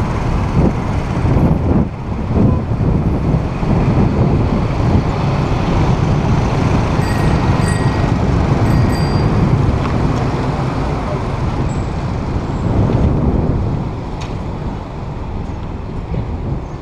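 Street traffic of motorbikes and cars, steady and loud, mixed with wind rushing over the microphone of a camera on a moving bicycle. A few short high beeps sound about halfway through.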